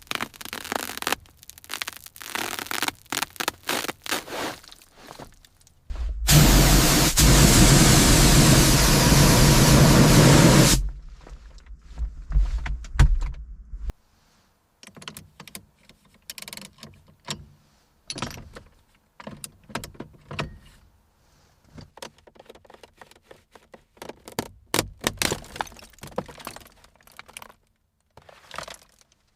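Clinks, scrapes and knocks of hard objects being handled. About six seconds in, a loud steady rushing noise starts and lasts about four and a half seconds, with a low rumble running on a few seconds longer.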